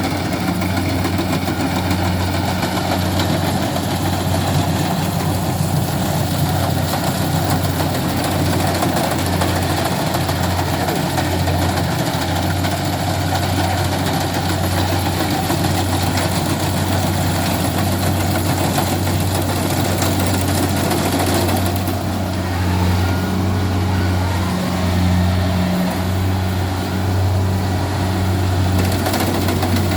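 Kubota combine harvester running steadily while harvesting rice: a continuous diesel engine hum under the broad rushing clatter of the machinery. The high rushing noise eases about two-thirds of the way through while the engine runs on.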